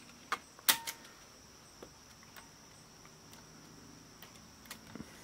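A few sharp clicks from the opened mini cassette recorder's mechanism as its levers and switch are handled: two loud ones in the first second, then fainter ticks, over a faint steady high-pitched tone.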